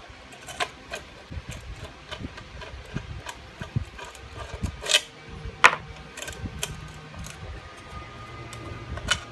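Metal parts of a power steering pump being handled on a workbench: scattered clicks and knocks, with two sharper ones about five seconds in, over a faint steady low hum.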